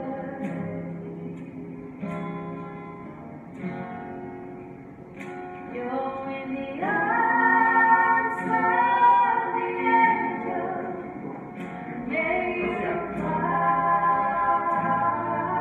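Singing with guitar accompaniment, the voices holding long notes and growing louder about seven seconds in and again near the end.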